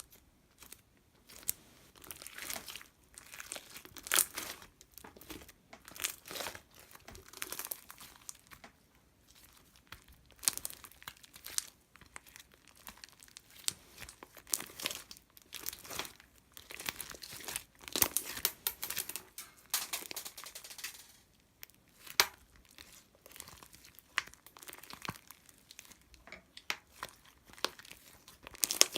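Irregular crinkling and rustling in clusters of sharp crackles with short pauses between them, like something thin and crinkly being handled close to the microphone.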